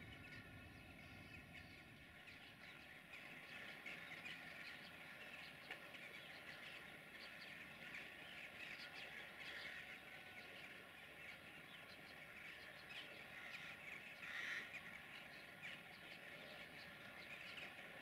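Faint bird calls: many short chirps, with one louder call about fourteen and a half seconds in.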